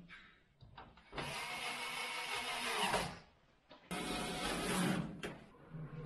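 Top-loading washing machine running its wash, the drum's pulsator driven in two spells of about two seconds and a second and a half, each starting and stopping suddenly with a short pause between.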